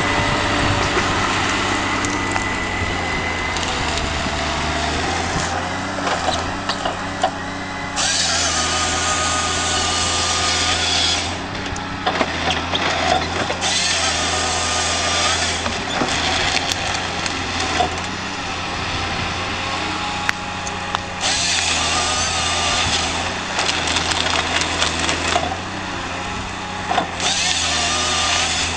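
Valmet 911.1 harvester's diesel engine running steadily under load while its Waratah 470 harvester head processes stems. The chain-saw bar cuts in four bursts of two to three seconds each, each with a high whine over the engine.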